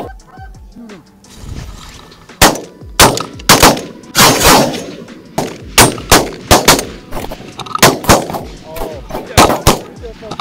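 A rapid volley of shotgun fire from several hunters at geese: about a dozen sharp, loud shots fired in quick succession, starting about two seconds in.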